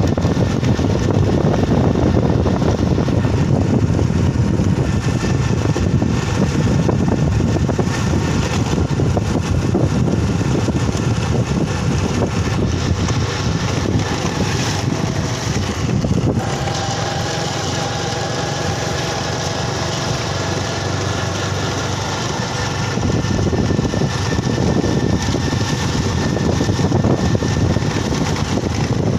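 Motorcycle engine running steadily under way on a rough unpaved road, with wind and road noise; it eases a little for several seconds past the middle.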